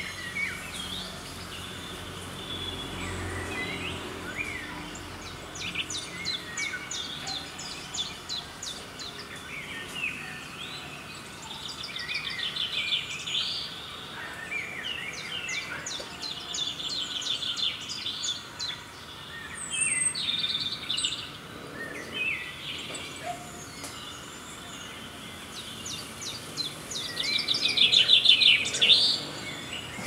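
Birds chirping and singing in short phrases and fast trills over a steady outdoor hiss, with the loudest trill near the end.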